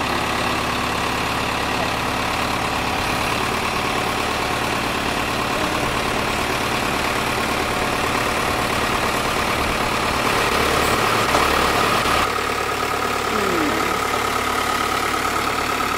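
New Holland farm tractor's diesel engine running steadily as it pulls a tipping trailer that is unloading clay. The engine grows a little louder about ten seconds in, and a steady whine joins it near the end.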